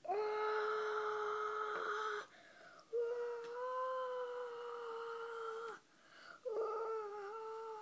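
A voice singing three long held notes with short breaths between them, like a wordless fanfare for a finale; the last note slides downward.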